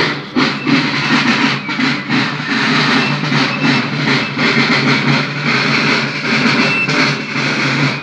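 Marching band playing a march as the column passes, drums beating about three times a second over a dense, sustained band sound.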